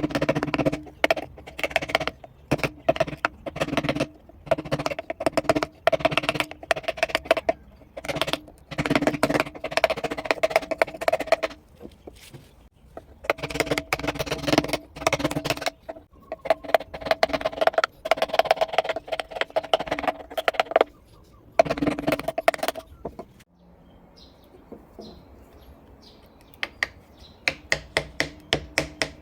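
A carving chisel struck in quick runs of taps as it cuts into wood, several strikes a second, with short pauses between runs. There is a quieter stretch near the end, then a last run of sharper taps.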